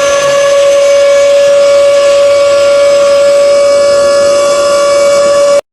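A loud, steady, siren-like tone held on one pitch with strong overtones, cut off abruptly near the end.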